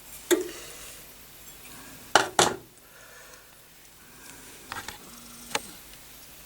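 A handful of light, sharp clicks and clinks from small hard objects being handled and set down. Two come close together about two seconds in, and two more come near the end.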